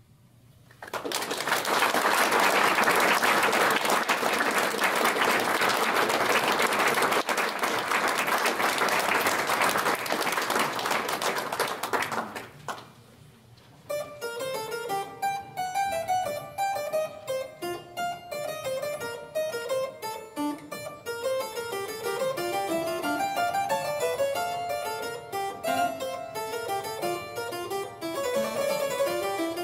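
Audience applauding for about eleven seconds, then after a short pause a pedal harpsichord starts playing, a dense stream of short plucked notes.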